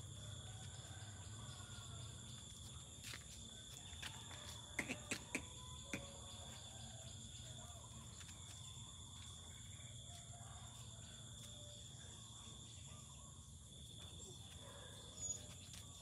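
Faint outdoor background with a steady high-pitched insect drone and a low rumble, broken by a quick run of four clicks or taps about five seconds in.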